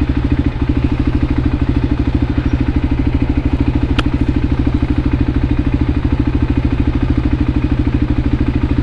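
Voge 300 Rally's single-cylinder engine running steadily with an even, unchanging pulse. A single sharp click sounds about four seconds in.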